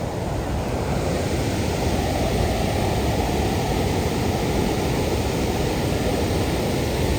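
Steady rush of falling water from Nyangombe Falls, getting slightly louder about a second in.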